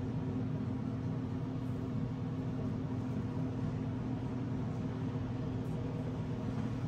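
A steady low machine hum with a buzzy edge, holding the same pitch and level throughout.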